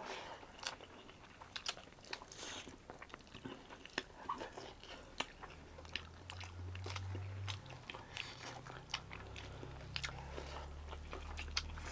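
A person chewing a mouthful of rice and pork curry close to the microphone, with many small wet mouth clicks. A faint low hum comes in about halfway through.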